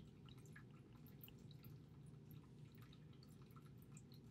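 Near silence: a faint, steady low hum of room tone, with faint scattered tiny ticks.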